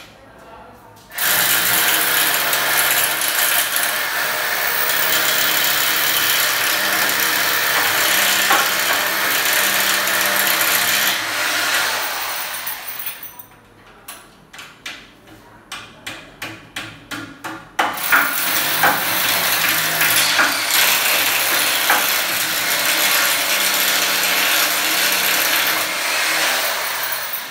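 Corded electric drill boring at the top of an aluminium window frame in two long, loud runs. Between them comes a quick string of about a dozen short bursts, roughly three a second.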